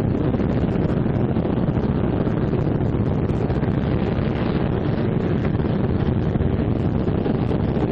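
Martin B-26 Marauder's Pratt & Whitney R-2800 radial engines running steadily on the ground just after start-up, warming up.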